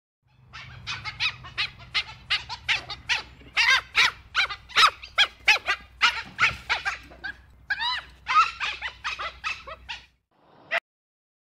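Dhole (Asiatic wild dog) giving a rapid series of short, high-pitched squeaking calls, several a second, some rising and falling in pitch. They stop about ten seconds in, and one more call follows shortly after.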